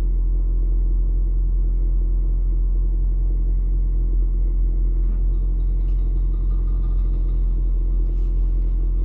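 Car engine idling, heard from inside the cabin as a steady low rumble, with a few faint clicks in the second half.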